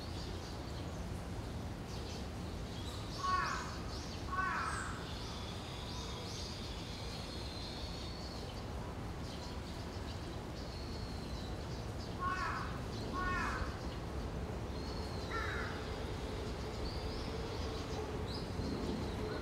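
Harsh bird calls, a pair of caws twice and then a single caw, each short and dropping in pitch. Small birds chirp thinly and higher throughout, over steady low background noise.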